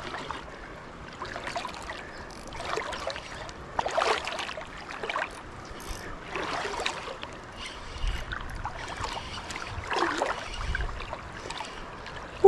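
River water sloshing and splashing close to the microphone, in irregular swells every second or so.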